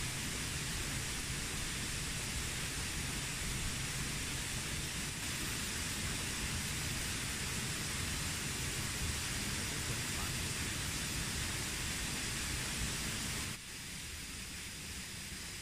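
Steady rushing noise of flowing stream water, with a low rumble underneath; the sound drops a little in level about 13 seconds in.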